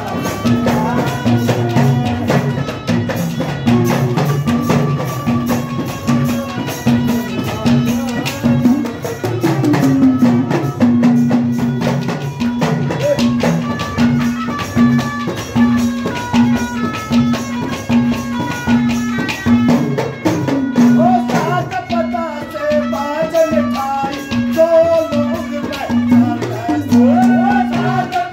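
Instrumental Indian devotional folk music. An Indian banjo (bulbul tarang) plays the melody over a repeated pulsing drone note, with fast deru drum and ghada pot percussion.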